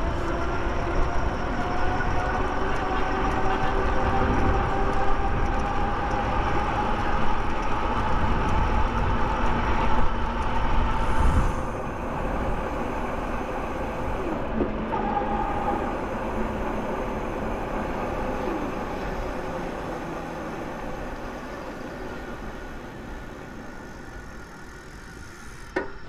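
Ride1Up Cafe Cruiser e-bike on the move: wind rumbling on the microphone and tyre noise on pavement, with a faint whine from the hub motor that rises slowly in pitch over the first ten seconds. About twelve seconds in the rumble drops, and the sound then grows gradually quieter as the bike slows.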